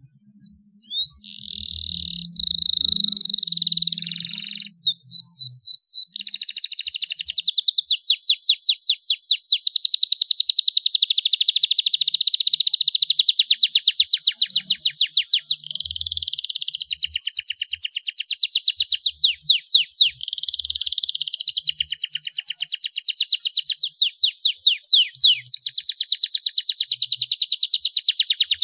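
Domestic canary singing a long, continuous song of fast rolling trills and rapidly repeated sweeping notes, broken by a few short pauses. The song is loud and high-pitched.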